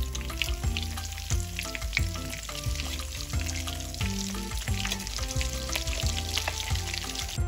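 Breaded salmon patties sizzling and crackling in hot oil in a stainless steel skillet as they are turned with a metal spatula. Background music with a steady bass beat plays underneath.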